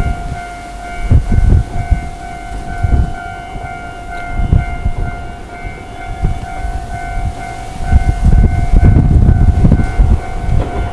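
Level-crossing warning bell ringing with a steady repeating tone, over irregular low rumbles and thumps as a Toyohashi Railway Atsumi Line train passes over the crossing.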